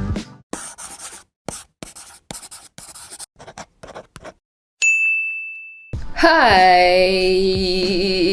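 A run of quick, scratchy pen-on-paper scribbling strokes, then a single bright ding that rings and fades, followed by a long held note with a slight waver.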